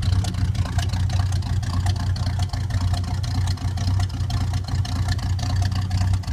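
1972 Oldsmobile 442 clone's engine idling, heard from behind at the dual exhaust tailpipes: a steady, deep exhaust note with a fine, rapid pulse.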